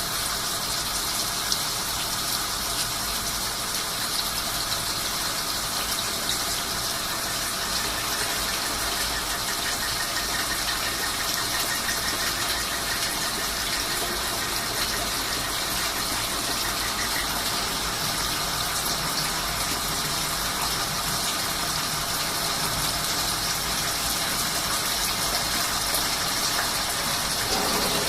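Swiss-type CNC lathe running, with a steady rush of cutting fluid pouring over the work. A faint high whine runs through the middle stretch.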